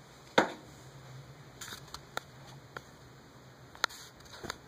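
Firecrackers going off: one sharp bang with a short echoing tail about half a second in, then a handful of smaller sharp pops, one of them louder near the end.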